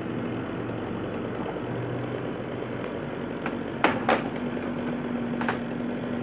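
JCB 3CX backhoe loader's diesel engine running steadily as the machine pushes against a partly cut tree, its note shifting about two-thirds of the way through. Four sharp cracks come in the second half, the loudest two close together, as the sawn trunk gives way.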